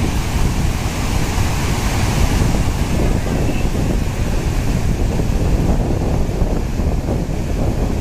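Overflow water from a reservoir dam pouring down a small waterfall, rushing loud and steady, with wind buffeting the microphone.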